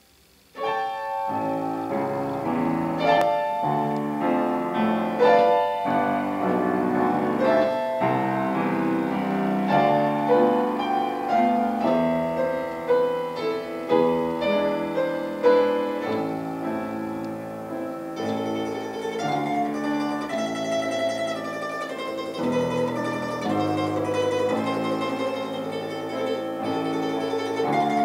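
Piano and a small round-bodied plucked string instrument, the domra or mandolin type, playing a slow Russian folk melody together, starting about half a second in. Later the plucked melody turns to fast tremolo over the piano chords.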